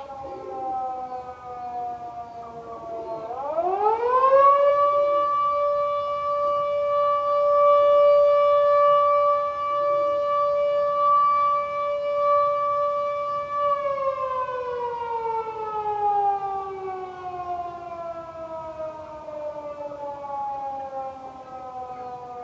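A siren sounding loud and long. Its pitch sags at first, winds up quickly about three seconds in to a steady high wail held for about ten seconds, then winds slowly down.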